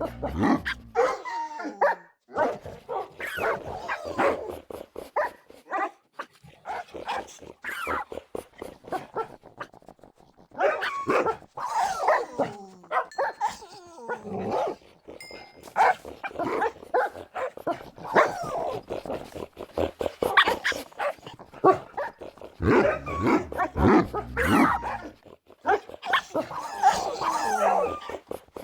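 Dogs barking, yipping and whining in a rapid string of short calls, many sliding up or down in pitch, with hardly a pause.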